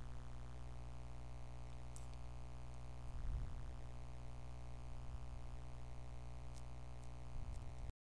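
Steady low electrical hum with faint hiss in the recording, broken by a few faint clicks, and cutting off abruptly to dead silence just before the end.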